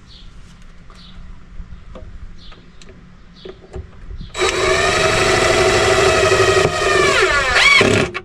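DeWalt power drill driving a screw into a wooden shelf: a loud, steady whine starts about four seconds in, sags in pitch near the end as the screw seats, then stops. Before it, light clicks and knocks of handling.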